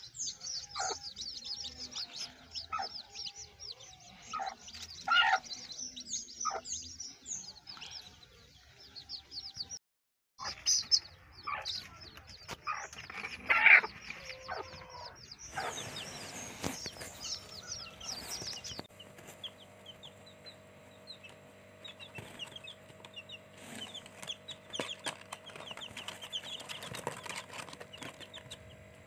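Young chicks peeping continually in quick, high chirps, with a hen clucking now and then. The sound breaks off briefly near the middle, and later a steady low hum runs under the peeping.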